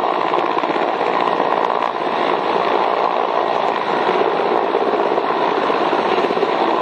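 Mil Mi-8-family helicopter hovering low: a loud, steady wash of main-rotor and turbine-engine noise.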